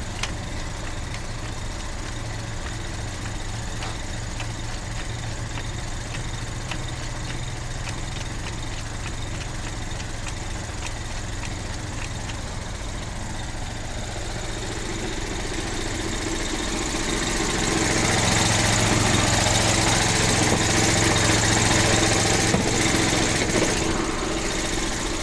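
An engine running steadily at idle, with faint regular clicking over the first several seconds; the engine sound grows louder and fuller about two-thirds of the way through, then eases slightly near the end.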